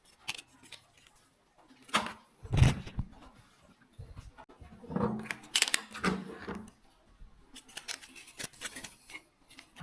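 Handling noises of parts being worked by hand: scattered knocks, clicks and rustles, with one heavy thump about two and a half seconds in.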